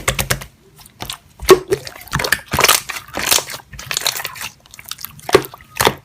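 Slime being squeezed and pressed by hand, giving an irregular run of crunchy crackles, pops and squishes.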